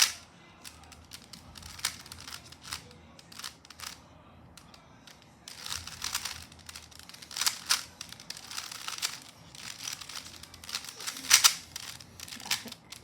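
A 3x3 speedcube being solved by hand: quick plastic clicking and clacking of the layers turning, a sharp click at the very start, scattered turns at first, then dense fast runs of turning from about halfway.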